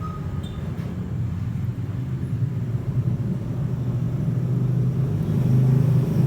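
A steady low rumble like a motor vehicle's engine, growing louder toward the end.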